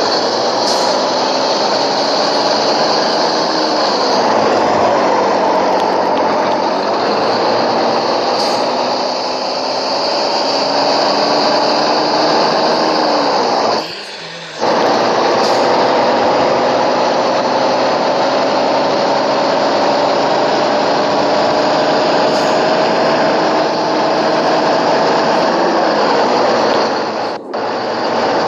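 An engine running loudly, several tones together whose pitch slides slowly up and down, with a brief drop in level about halfway through and another near the end.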